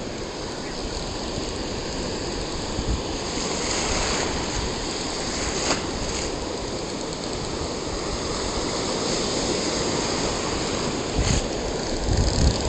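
Surf washing and breaking close to the microphone, a steady rush of seawater with wind on the microphone. There is a sharp click about halfway through and a few low thumps near the end.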